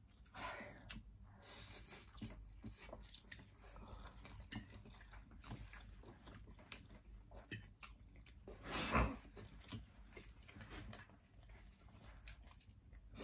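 Close-up eating sounds: chewing and slurping instant noodles, with soft wet mouth clicks throughout and one louder burst of noise about nine seconds in.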